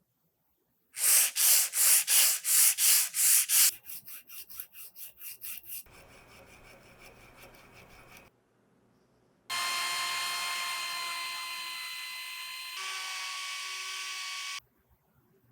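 Rhythmic rubbing strokes, about three a second, loud at first and then softer, then a steady hiss; after a short pause a machine runs with a steady whine for about five seconds, its pitch shifting once.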